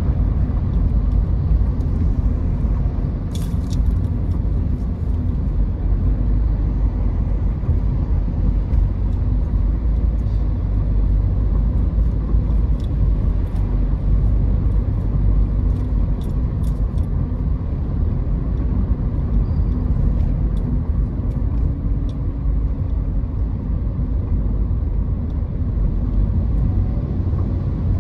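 Steady low rumble of a car on the road, with a faint hum and a few scattered light ticks.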